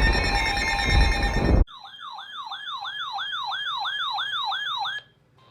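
Loud music cuts off abruptly, and an electronic siren-like alert tone takes over, warbling up and down about three times a second for about three seconds before stopping.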